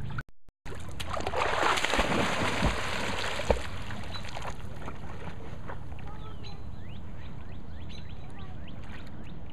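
Lake water splashing and sloshing for a few seconds as a dog swims, then settling to gentle lapping over a low steady rumble, with faint bird chirps in the background. The audio drops out briefly just after the start.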